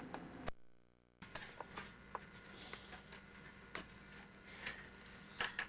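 Quiet room tone from a home camcorder recording: a steady low hum with scattered faint clicks and taps. About half a second in, the sound cuts out abruptly for under a second where the recording stops and restarts.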